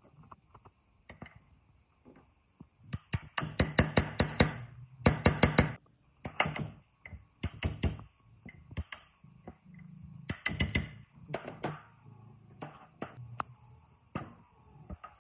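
Bursts of rapid metallic tapping, several sharp strikes a second in runs of about a second, the longest two a few seconds in.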